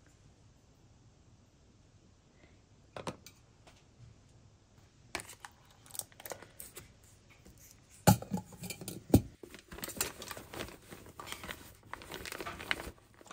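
Lunch-box packing sounds: after a quiet start, clicks and a clatter of knocks as lids are fitted onto a stainless thermal food jar and a lunch box, the two loudest knocks about eight and nine seconds in, then cloth and fabric rustling as the box goes into a lunch bag.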